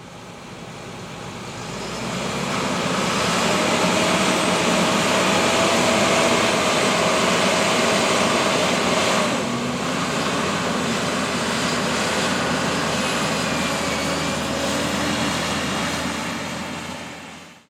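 Heavy farm machinery running at a corn harvest: a steady engine and machine noise that fades in over the first few seconds. A held whine runs over it and stops about halfway through, where the level dips briefly.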